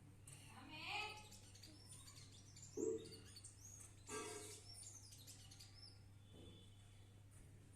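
Small birds chirping and twittering in many quick high calls, with two louder, harsher sounds about three and four seconds in, over a faint steady low hum.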